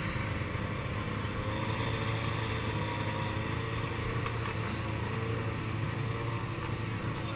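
A small vehicle engine running steadily at low revs with a low, even hum.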